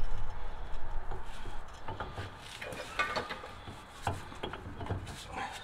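Jeep Wrangler JK front axle shaft being slid by hand through the steering knuckle, its metal parts knocking and scraping against each other in irregular clicks. There is a low rumble in the first second or so.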